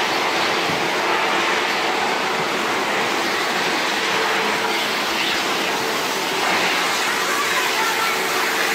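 Steady machinery noise of a fish-processing line: conveyors running with a constant hum under an even din.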